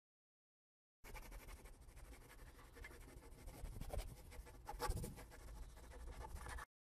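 Felt-tip marker writing on a whiteboard: faint scratchy strokes that start about a second in and stop shortly before the end, with a couple of louder strokes in the middle.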